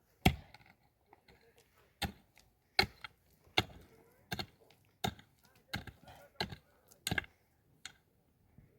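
Wood being chopped with a bladed hand tool: about a dozen sharp, separate blows at an uneven pace, roughly one every half second to a second, with a longer pause near the start.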